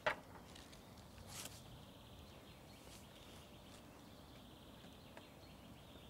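A wooden chess piece set down on a wooden board with one sharp knock right at the start, then a softer brush of a piece about a second and a half in, over faint outdoor background noise.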